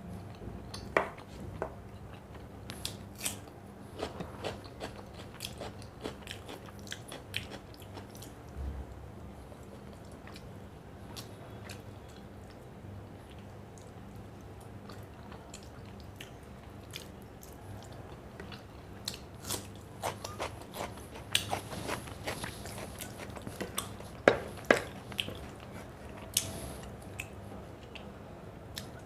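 Close-up eating sounds: a person chewing with wet mouth clicks and irregular crunches, the crunching busier near the start and again in the last third, with a sparser stretch in the middle.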